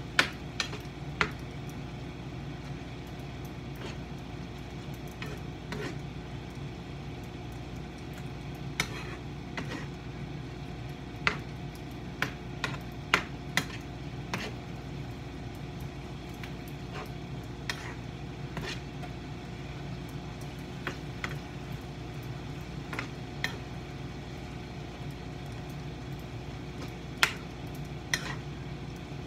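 Spatula clicking and scraping against a frying pan at irregular moments while chicken strips and cabbage are stir-fried, with sizzling over a steady low hum.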